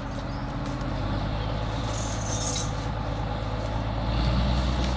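Diesel engine of a forestry machine running under load while it pulls an overturned farm tractor back onto its wheels. Its sound shifts about a second in and grows louder near the end.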